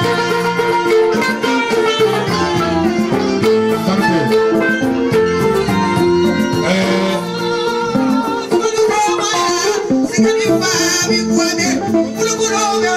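Live music through a microphone and loudspeakers: a singer's voice over a steady instrumental accompaniment of plucked strings.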